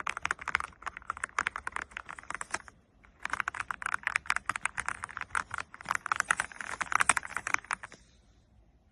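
Fast, continuous typing on an AULA F99 mechanical keyboard. There is a short break about three seconds in, and the typing stops about eight seconds in.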